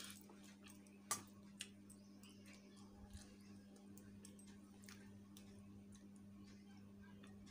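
Near silence: a steady low hum with a few faint clicks and ticks of eating by hand from a steel plate, the sharpest click about a second in.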